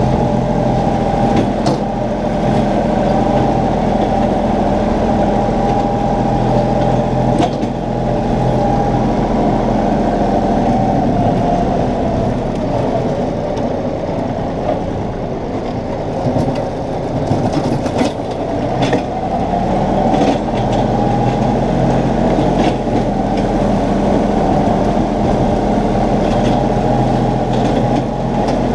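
Compact tractor engine running steadily while mowing, its note easing for several seconds midway and picking back up about twenty seconds in, with a few short rattles.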